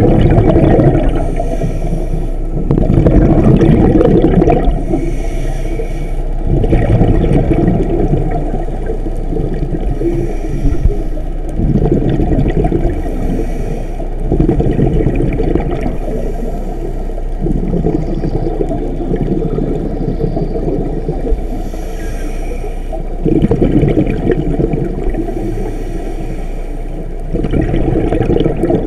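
Muffled water sloshing and gurgling, swelling and ebbing in surges every few seconds.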